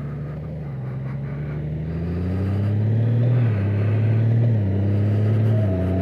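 2019 Honda Gold Wing's flat-six engine accelerating away from a stop. Its pitch rises steadily, then drops back as the dual-clutch transmission shifts up about three and a half seconds in, and again about a second later.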